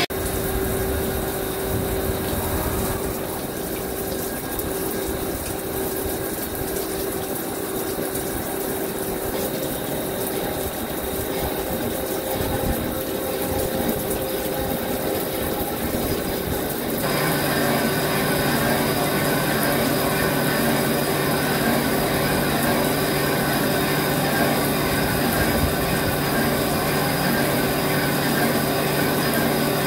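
CNC vertical lathe turning a cast iron turbo compressor housing: steady machine running and cutting noise with coolant splashing onto the spinning part. About 17 seconds in the sound changes, a little louder, with a low hum added.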